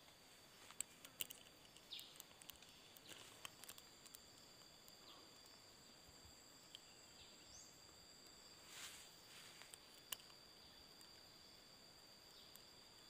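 Near silence with a faint, steady high-pitched insect drone, broken by a few small clicks in the first few seconds and one near ten seconds, and a short rush of noise about nine seconds in.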